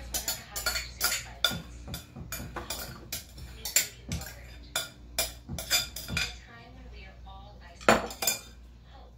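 A spatula scraping and tapping against a mixing bowl as the last of the cream is scraped out: a quick run of clinks and scrapes, about three or four a second, then quieter, and one sharp knock near the end.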